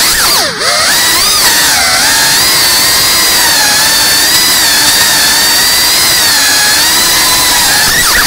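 Small FPV quadcopter's brushless motors whining loudly, the pitch swooping down and back up with the throttle about half a second in, then holding a high whine that wavers gently with each small throttle change.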